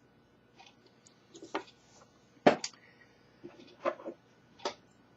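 About six short, sharp clicks and taps at irregular intervals, the loudest about two and a half seconds in, from handling a just-reassembled Samsung Galaxy S4 smartphone and its small parts.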